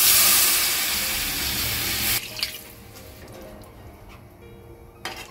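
Water poured from above into a hot kadai of fried chicken and potato masala, a steady rushing splash that stops abruptly about two seconds in. After that the curry is stirred with a metal spatula, with a couple of light clicks against the pan.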